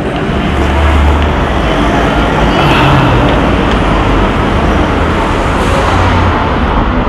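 Busy street traffic: steady engine rumble and road noise, with a car driving past close by.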